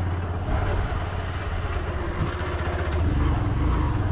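Motorcycle engine running steadily while riding, a low, even engine note.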